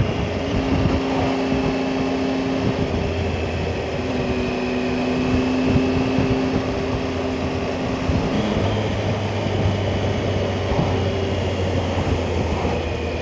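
Motorcycle engine running at cruising speed under a steady rush of riding wind on the microphone. Its note holds steady for a few seconds at a time and shifts a couple of times, about three and eight seconds in, as the throttle changes.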